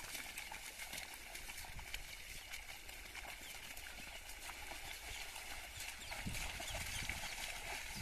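A pair of bullocks and a plough squelching and splashing through a flooded paddy field: hooves pulling through wet mud, with a few louder splashes about two-thirds of the way in, over a steady outdoor background.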